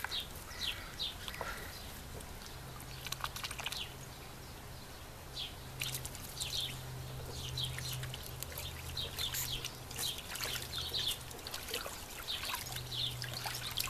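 Domestic ducks bathing in a shallow plastic water trough: irregular splashes and dribbling water, many short sharp splashes scattered throughout.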